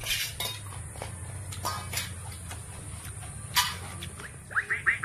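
Slurping and mouthing sounds of someone eating watered rice by hand, in short scattered bursts over a steady low hum. Near the end comes a quick run of about five short rising chirps.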